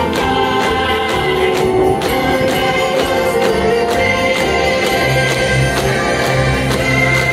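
Christmas parade music with a steady beat, playing loudly for the marching toy-soldier unit.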